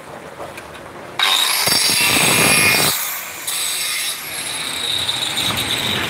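Handheld electric stone cutter with a disc cutting a stone step slab: a sudden loud gritty whine starts about a second in. It eases off near the three-second mark, then comes back and keeps running more quietly.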